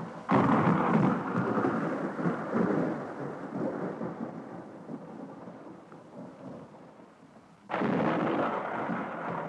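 Thunder in a rainstorm: a sudden clap about a third of a second in that rolls away slowly over several seconds, then a second clap near the end, with rain beneath.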